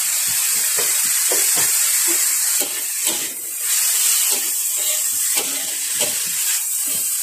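Shredded carrots and vegetable strips sizzling in a hot steel wok with a steady hiss, while a metal spatula tosses them, scraping against the pan now and then.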